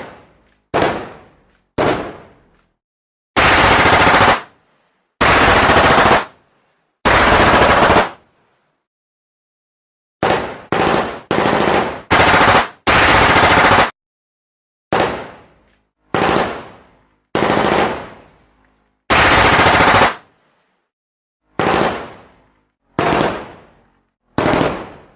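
Gunfire sound effects: single sharp shots with ringing tails that fade, alternating with bursts of automatic fire about a second long that cut off abruptly. There are about a dozen shots and five bursts, each separated by a short silence.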